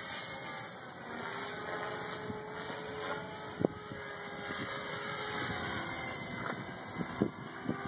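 Align T-Rex 500 electric radio-controlled helicopter in flight: a steady high-pitched whine from its motor and drivetrain that wavers slightly in pitch as it manoeuvres. There is a brief knock about three and a half seconds in.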